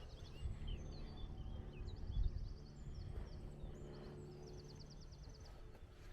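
Small songbirds singing: scattered high chirps and a rapid trill of evenly repeated notes that comes back a few times. A low, uneven rumble runs underneath.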